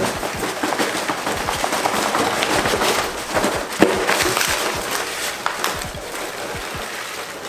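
Foam packing peanuts pouring and tumbling out of a cardboard box onto a table, a continuous rustling, crackling clatter of many small light pieces. One sharper knock comes about four seconds in.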